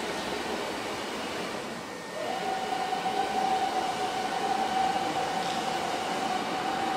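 Five-axis CNC router's spindle starting up, a whine that rises quickly about two seconds in and then holds at one steady pitch, over the even hum of the workshop.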